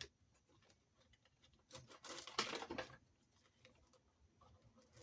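Quiet handling noises of small plastic RC car parts: a few light clicks, and a rustling scrape lasting about a second near the middle.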